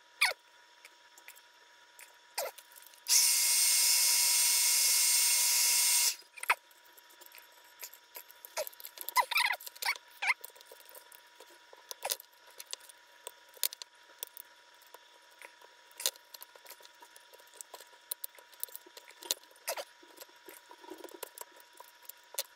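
A hot-air gun blows for about three seconds, heating the DJI Mavic 2 battery case to soften the adhesive that holds the cells tight inside. It is followed by scattered plastic clicks and scrapes as the case is pried apart.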